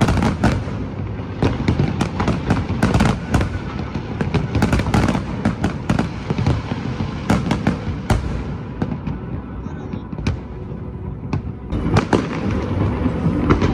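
Fireworks display: a rapid run of shell bursts and crackling bangs, thinning to a few scattered bangs about two-thirds through, then a fresh cluster of bangs near the end.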